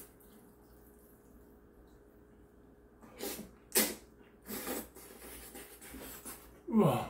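A person slurping a mouthful of noodles: a few short, sharp slurps from about three seconds in. A short vocal sound follows near the end.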